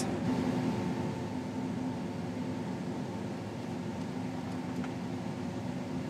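Combine harvester running while it unloads corn through its auger into a grain cart, heard from inside the closed cab: a steady hum with a few steady tones.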